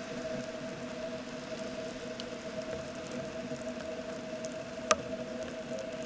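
Steady rain pattering on water and ground, with a steady low hum underneath and one sharp click about five seconds in.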